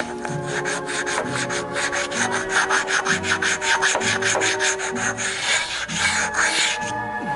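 A hand-held flat stone scraping back and forth across the cast-iron deck of a Chevy V8 block with the heads off, in quick even strokes of about four a second, then stopping near the end. The block is being stoned flat to take down high spots and clean the gasket surface for the new head gaskets.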